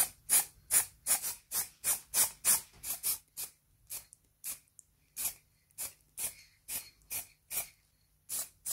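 Aerosol can of black spray paint released in short puffs, two to three a second, a little more spaced out after about four seconds.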